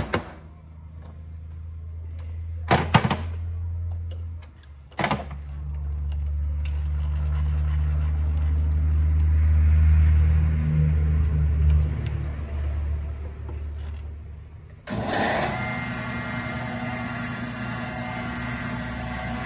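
A soft-faced hammer knocking a workpiece down to seat it in a milling-machine vise, in short clusters of taps near the start, about 3 seconds in and about 5 seconds in, over a low hum that swells and fades. About 15 seconds in, a milling machine's motor starts abruptly and runs steadily.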